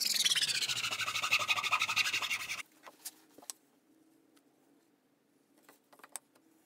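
Metal file rasping along the edge of a birch saw handle, a fast run of ticks whose pitch falls, stopping abruptly under three seconds in. Then a few light clicks and taps as the handle and tools are handled.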